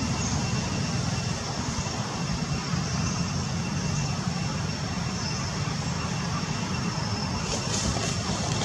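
Steady low rumbling background noise with a faint, steady high-pitched whine above it.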